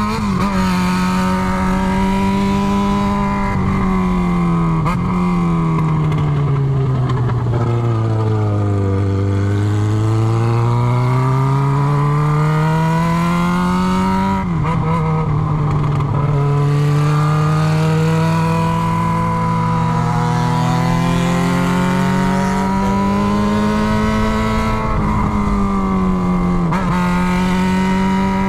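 Yamaha XJ6's inline four-cylinder engine running on an open exhaust with the muffler tip removed, while riding. The pitch falls steadily for several seconds as the bike slows, climbs again, drops suddenly at a gear change about halfway through, then climbs again with short dips near the end, over a rushing noise.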